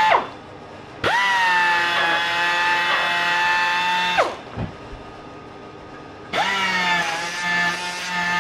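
Handheld pneumatic mini polisher whining at high speed while polishing the engine's aluminium side cover. It winds down just after the start, spins back up about a second in, winds down again around four seconds, and starts up once more past six seconds.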